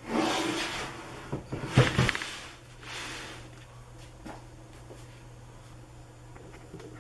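Wooden cabinet pieces being handled: a scraping slide, a few sharp knocks about two seconds in, then another brief scrape.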